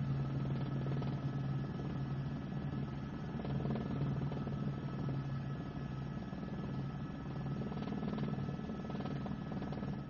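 Steady helicopter engine and rotor drone, a low hum with fine rapid beating and a faint high whine.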